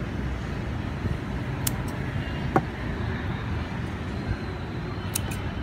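Scissors snipping moss rose stems into cuttings: a few sharp, short clicks, about a second and a half, two and a half and five seconds in, over a steady low background rumble.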